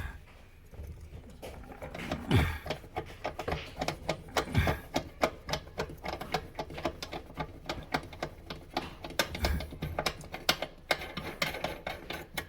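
Rapid, irregular clicking and ticking of small metal parts as a dishwasher's mounting clips are worked up, with a few louder knocks among them.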